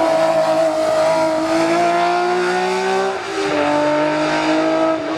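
Hill-climb race car engine at full throttle, its pitch climbing, then dropping sharply with an upshift about three seconds in before it pulls up again.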